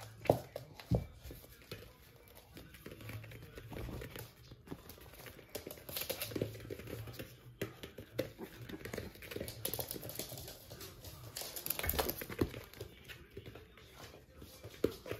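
Two toy poodle puppies playing on a padded floor mat: scrabbling paws and rustling, with scattered light taps and knocks.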